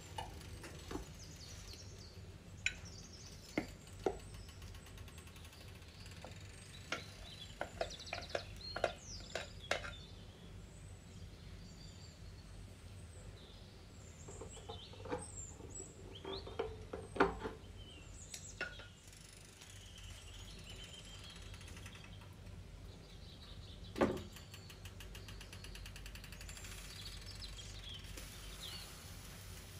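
Kitchen handling sounds: scattered light knocks and clinks of a wooden spoon and other utensils against a frying pan and glass mixing bowl, with a sharper knock a little after the middle, over a low steady hum. Faint bird chirps come and go in the background.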